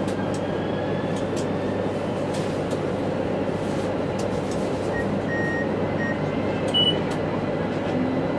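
AnsaldoBreda Sirio light-rail tram running along the track, heard from inside the front cab as a steady rumble. A few short high beeps come about five seconds in, and a brief, louder high tone just before seven seconds.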